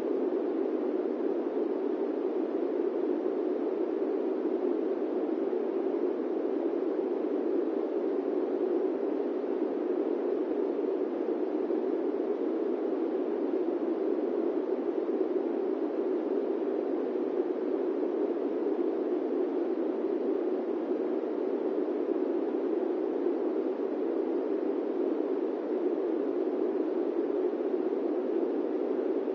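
Steady airplane cabin noise: an even, muffled rushing sound, heaviest in the low-middle range, with no hum, tones or changes.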